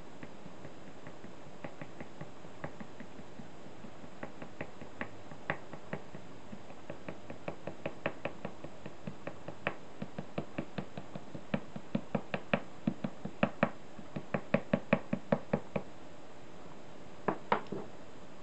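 Ink brush tapped repeatedly onto a stiff shikishi board, dabbing on cherry-blossom petals: light taps that start sparse and grow louder and quicker, up to about four a second. Two sharper knocks come near the end.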